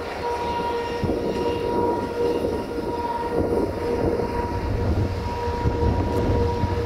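Steady whine of a drone's propellers over the low rumble of a diesel-hydraulic locomotive hauling a freight train, the rumble growing louder in the second half.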